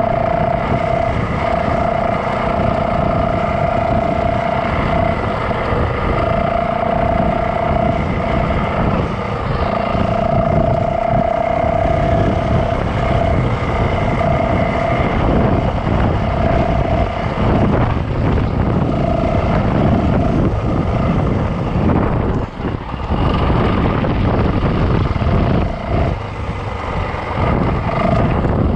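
Yamaha dirt bike engine running under way on a dirt trail, with a steady whining note that comes and goes as the throttle is held and eased, and a few short drops in engine sound near the end.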